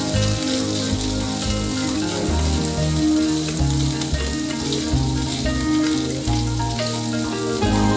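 Beef flakes sizzling as they fry in hot oil in a frying pan, over background music.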